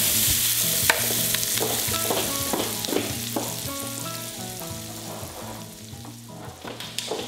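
Chopped vegetables sizzling in a hot skillet, scraped and stirred with a wooden spatula at first. The sizzle grows fainter in the second half. Soft background music plays underneath.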